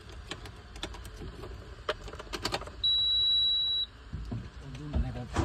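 A BharatBenz truck's dashboard warning buzzer giving one steady high beep, about a second long, as the ignition is switched on and the warning lights come up. Before it there are a few light clicks.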